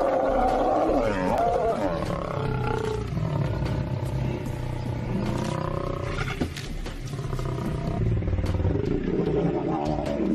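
Two male lions growling at each other in a standoff, a continuous rising and falling growl that is loudest at the start and again near the end.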